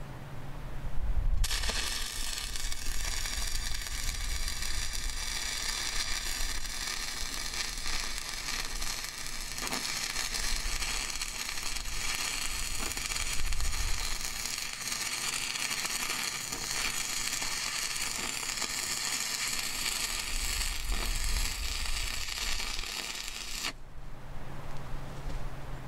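Stick-welding arc with a 6010 electrode, crackling steadily as a bead is run. It strikes about a second in and breaks off shortly before the end.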